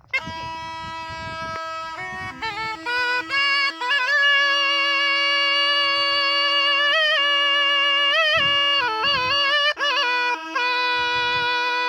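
Been (pungi), the snake charmer's gourd reed pipe, playing a steady drone under a wavering, ornamented melody. The drone drops out briefly a few times, and the playing gets louder about four seconds in.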